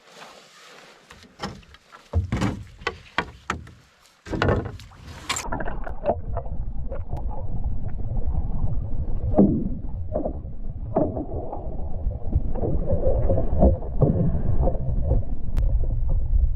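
Canoe on the water: a run of sharp knocks and splashing for the first five seconds, then a steady low rumble.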